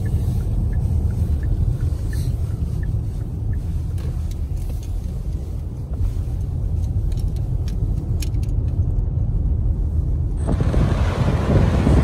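Car-interior road noise: a steady low rumble of tyres and engine while driving. About ten and a half seconds in, it cuts suddenly to loud wind buffeting the microphone over the rush of a large waterfall.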